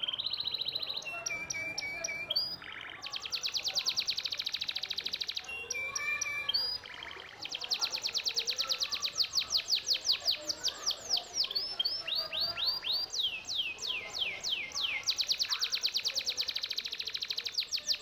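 Songbird song: long, fast trills of rapidly repeated high notes, broken in the middle by a run of separate downward-sweeping whistles that fall lower and come slower before the fast trill returns.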